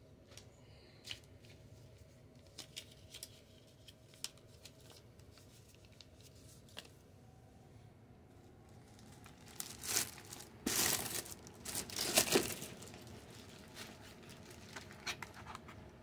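Clear plastic wrap around a cardboard box being torn open and crinkled by hand: faint scattered crackles at first, then a louder burst of tearing and crinkling lasting about two and a half seconds, followed by lighter crackles.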